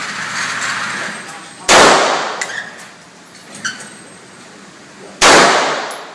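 Two handgun shots about three and a half seconds apart, each sharp and loud with a long echoing tail.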